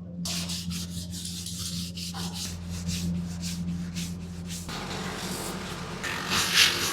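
Sandpaper rubbing back and forth on the willow of a cricket bat in quick strokes, about three to four a second, over a steady low hum; about two-thirds in the strokes give way to a more even scraping.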